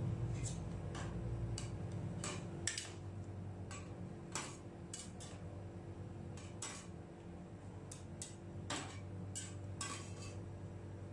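Metal ice cream spatulas clicking and tapping against the steel cold plate of a rolled ice cream machine as rolls are scooped up and set upright: a run of sharp, irregular clicks over a steady low hum.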